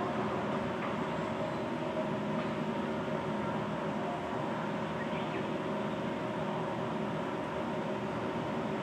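Steady mechanical hum and hiss with several held tones, even in level.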